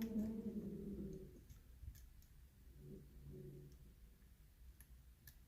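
A few faint, scattered clicks of a lock pick working the pin stacks of a challenge lock during single-pin picking.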